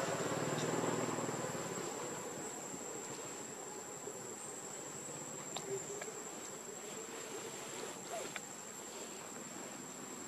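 Insects droning in one steady, thin, high-pitched tone, with a low background noise fading away over the first two seconds and a few faint ticks around the middle.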